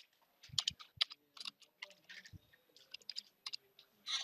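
Computer keyboard typing: an irregular run of short key clicks as a terminal command is typed.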